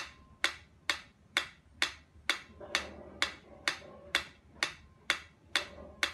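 Mechanical pyramid metronome ticking at a steady tempo, a sharp click a little more than twice a second.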